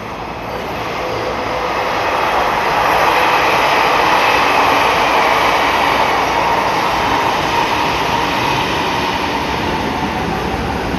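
E231-0 series electric commuter train pulling out of the station: a traction-motor whine over the rumble of wheels on rail, growing louder over the first couple of seconds as it gathers speed, then holding steady.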